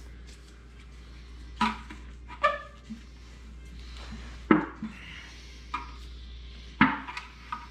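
Scattered clatters and knocks of hard objects being handled, five or so sharp hits a second or so apart, some ringing briefly, over a steady low hum.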